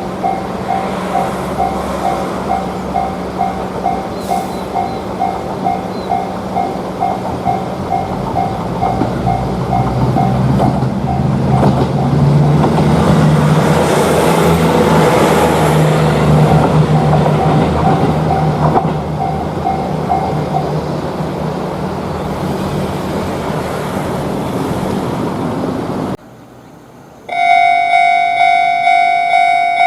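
Japanese railroad crossing warning bell ringing in quick, even strokes as a train passes through the crossing; the rumble of the train builds, is loudest in the middle and fades. The bell stops about two-thirds of the way in, and near the end another crossing's bell starts ringing, louder and clearer.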